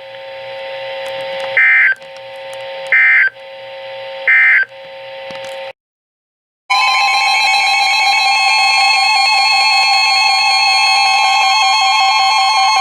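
Emergency Alert System end-of-message signal: three short digital data bursts about 1.3 seconds apart over a low radio hum. After a second of silence the steady, loud two-tone EAS attention alarm starts and holds.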